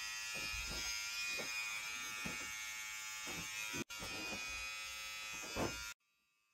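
Electric hair clippers buzzing steadily as they cut short hair close to the scalp, with irregular louder strokes as the blades pass through the hair. The buzz breaks off for an instant near four seconds in and stops abruptly about six seconds in.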